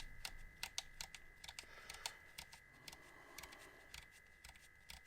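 Faint, irregular clicking of a camera's buttons and control dial being pressed and turned as its settings are changed, several clicks a second.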